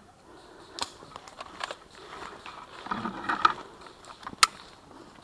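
Sounds of an airsoft skirmish in woodland: a few scattered sharp cracks and clicks, the loudest about four and a half seconds in, with a brief rattling clatter around three seconds.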